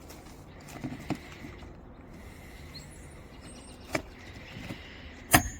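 A few light taps and clicks on the roof, then near the end one loud hammer blow on a roofing nail, driving it down flush into the asphalt shingle.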